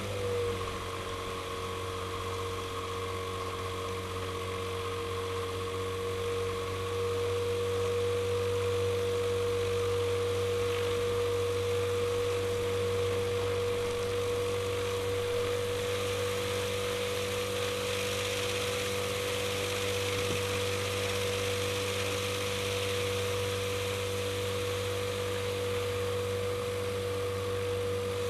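Avid light aircraft's engine and propeller running steadily at low power while the plane taxis: a low drone with a steady whine on top, its pitch settling slightly at the start and getting a little louder about seven seconds in.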